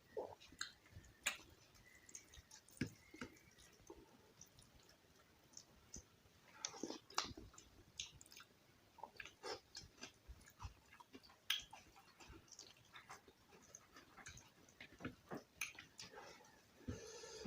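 A person chewing and smacking close to the microphone while eating soft rice with mashed-vegetable bhorta, a string of irregular faint mouth clicks.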